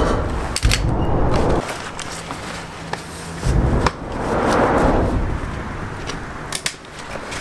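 Metal poles of a Woods folding camp cot clicking and knocking as the cot is assembled, with the fabric rustling as it is pulled taut. A noisy low rumble runs underneath, easing and then swelling again about halfway through.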